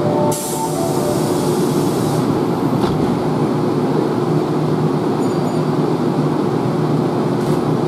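Kintetsu electric commuter train standing at the platform, its onboard equipment giving a steady hum. A hiss starts about half a second in and stops about two seconds in, with a faint tick about three seconds in.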